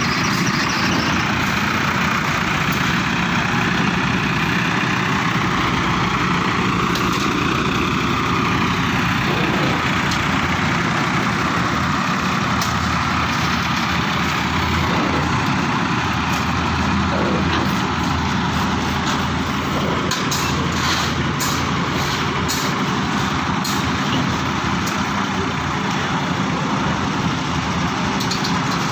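An engine running steadily, with a few sharp clicks about twenty seconds in.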